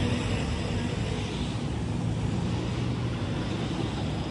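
City street traffic noise: a steady rumble of passing road vehicles.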